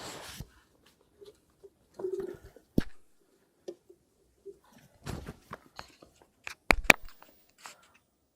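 Fishing tackle being handled: scattered rustles, light knocks and clicks, with a sharp click about seven seconds in.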